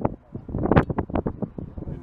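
Strong wind buffeting the microphone: an irregular, gusty rumble that drops briefly about a quarter second in, then picks up again.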